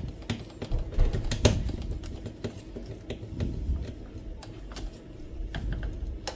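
Irregular light clicks and taps of a screwdriver and plastic printer parts being handled while screws are taken out of the power supply mount.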